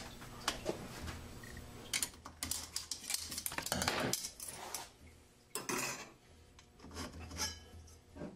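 Steel and friction clutch plates clinking and scraping against each other and the drum as they are worked out of a Ford 6R80 transmission's E (overdrive) clutch drum, in irregular clusters of small metallic clicks.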